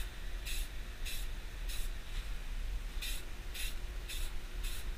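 Aerosol spray-paint can spraying a motorcycle fairing in short bursts of hiss, about seven in all, with a break of under a second near the middle. A steady low rumble runs underneath.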